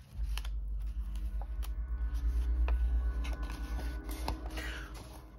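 A deep low rumble that starts suddenly, swells and fades away over about five seconds. Small clicks of planner pages and stickers being handled sound over it.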